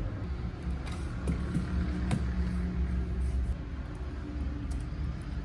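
Light clicks and taps as a laptop is opened and handled, with a few sharper knocks in the first couple of seconds, over a steady low rumble.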